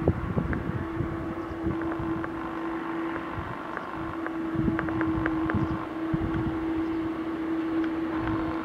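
Airbus A321's IAE V2500 turbofan engines running at low taxi thrust as the jet lines up on the runway: a steady engine hum with one held tone. Wind buffets the microphone with uneven low rumbles.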